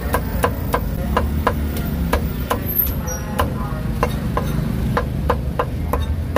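A cleaver chopping cooked meat on a thick wooden chopping block: steady, sharp knocks about three a second, over a low, steady rumble.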